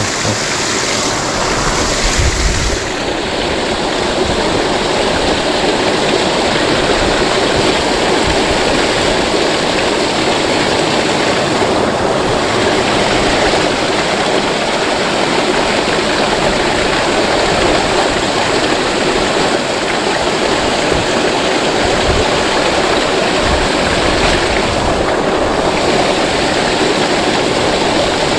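Steady rush of flowing river water, an even, unbroken noise.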